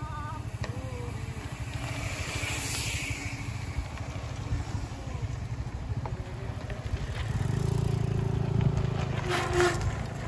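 Bicycle rolling over a rough, rocky trail: a steady rattle and rumble from the tyres and frame. A low steady hum joins about two thirds of the way through.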